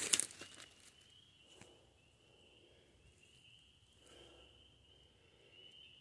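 Footsteps crunching through dry leaf litter in the first half second, then a faint, steady high-pitched chorus of calling animals in the background, with a soft rustle of leaves about four seconds in.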